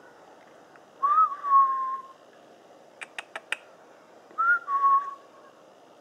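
Two clear whistles about three seconds apart, each rising briefly and then holding a slightly falling tone, with four quick sharp clicks between them.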